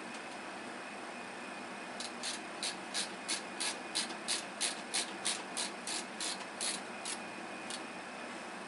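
Screwdriver ratchet clicking while a screw is driven in: a run of about fifteen even clicks, roughly three a second, starting about two seconds in and stopping about five seconds later.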